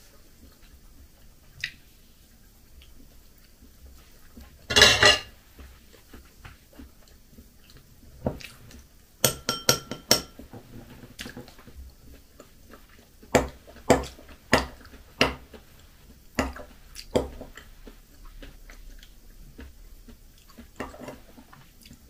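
A metal fork clinking and scraping against ceramic plates and a bowl of food in scattered taps, a few of them ringing briefly, with a louder clatter about five seconds in.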